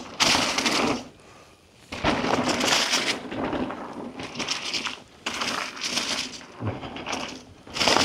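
Mountain bike riding down a dirt jump trail: tyres crunching over the ground and the bike rattling, in loud stretches broken by about a second of quiet a second in.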